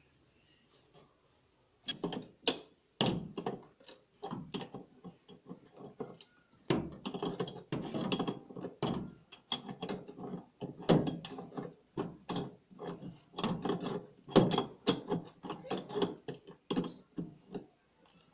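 Rapid metallic clicking and rattling in short, irregular bursts, starting about two seconds in. These are hand tools and parts at work as the tub of a top-load washing machine is refitted over its new clutch gear.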